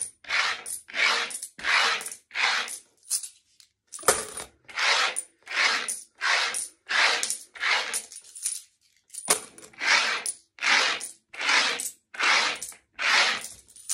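Turkish lira coins being counted, slid one stroke at a time across a wooden tabletop: a short scrape with a clink on each stroke, about two a second, with a brief pause just past the middle.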